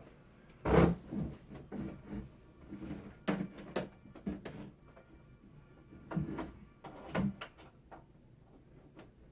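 Irregular knocks, bumps and clatters of hardware and cables being handled while an HDMI cable is plugged back into an Xbox, the loudest knock about a second in and a quiet stretch near the end.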